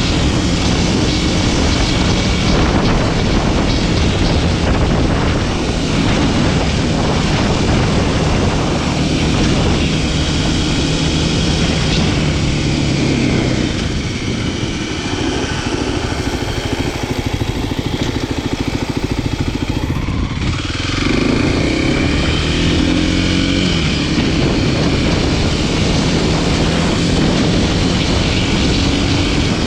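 Kawasaki KLX300SM supermoto's single-cylinder four-stroke engine running at a steady cruise, with wind rushing past. Roughly halfway through it eases off the throttle for several seconds, then picks up speed again with the pitch rising.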